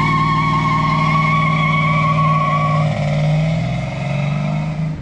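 Loud car engine held at steady high revs, with a steady high squeal over it that drops out about three seconds in.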